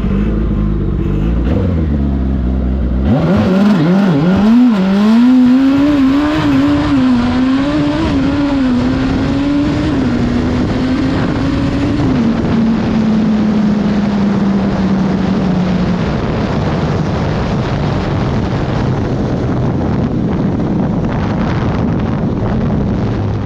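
Turbocharged motorcycle engine being ridden. It runs steadily at first; about three seconds in the engine note jumps and rises and falls with the throttle, then holds steady and fades, leaving mostly wind rushing over the microphone.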